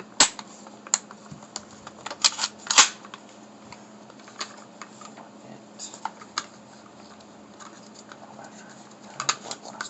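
Scattered sharp clicks and clacks of shotgun parts being handled and worked during disassembly, with a cluster of louder clacks about two to three seconds in. A faint steady hum runs underneath.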